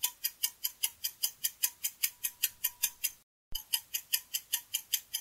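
Ticking clock sound effect: rapid, even ticks at about five a second, broken by a short gap of silence a little past three seconds in.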